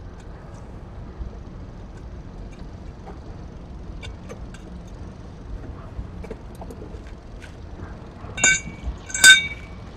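Metal tools clinking: two short metallic clinks with a brief ring, about a second apart near the end, over a steady low background and a few faint ticks.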